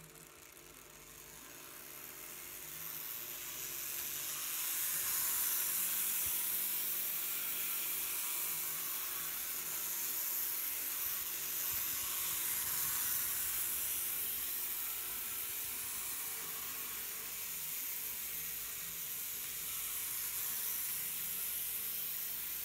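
N-scale Tomix Shinkansen 0 series model train, fitted with a digital decoder, pulling away and running on its track: a high-pitched hiss of the small motor and wheels that swells over the first four seconds as it gathers speed, then holds steady.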